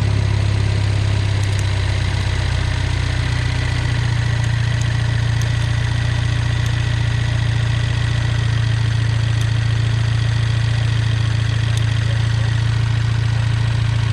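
Mini Cooper S N18 1.6-litre turbocharged four-cylinder engine idling steadily, its note shifting slightly about four seconds in.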